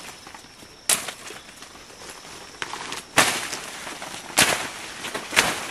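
Pushing through dense jungle undergrowth: about four sharp crunching snaps of twigs and dry leaves roughly a second apart, with rustling of leaves and brush in between.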